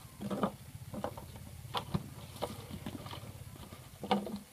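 An empty plastic water bottle and its screw cap being handled and set down on a plastic tablecloth: a few irregular light knocks and crinkles, over a steady low hum.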